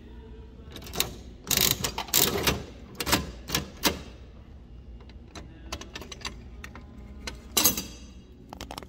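Capsule toy vending machine's coin crank being turned, the mechanism ratcheting and clunking in a series of clicks, with a louder clatter near the end.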